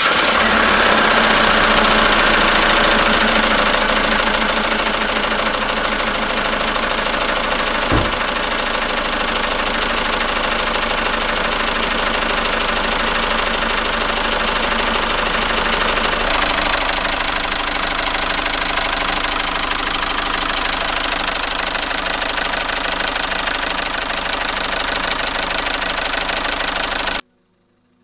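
SsangYong Rexton Sports 2.2-litre diesel engine idling just after start-up, with a steady, rhythmic ticking rattle ('ttaga-ttaga') from a worn crankshaft damper pulley on the accessory belt drive. There is a single sharp knock about eight seconds in, and the sound cuts off suddenly near the end.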